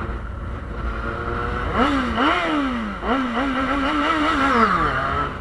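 Yamaha Fazer 600 (FZ6) inline-four motorcycle engine being revved hard through a gutted stock muffler. It holds steady for under two seconds, then the revs climb and drop several times, with a long climb and a fall near the end.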